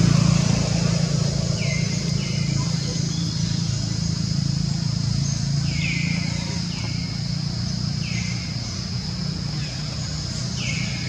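Outdoor ambience: a steady low hum with a constant high drone above it, and short falling chirps repeated every second or so, more often in the second half.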